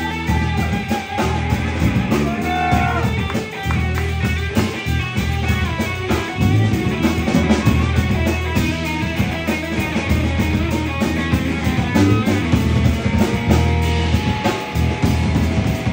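Live rock band playing: an electric guitar through an amp takes the lead, with notes that bend up and down in the first few seconds, over bass and drums.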